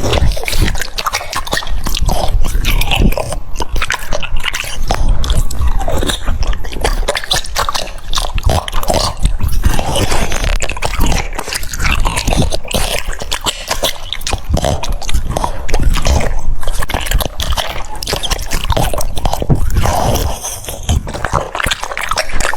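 French bulldog chewing cucumber close to the microphone: continuous crunching, with many quick bites following one another without pause.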